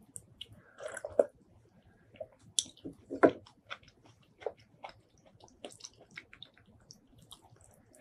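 Close-miked eating sounds: a sip of soup from a spoon about a second in, then wet chewing with many short clicks and smacks.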